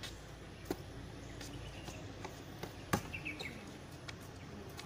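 Outdoor basketball court ambience: a basketball thuds faintly about a second in and more sharply about three seconds in, with a brief bird chirp just after.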